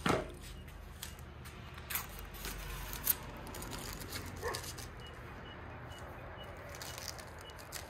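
A dog barks twice, each bark a short call falling in pitch, near the start and about four and a half seconds in. Between them come a few sharp clicks of boxed items and packaging being handled, the loudest about three seconds in.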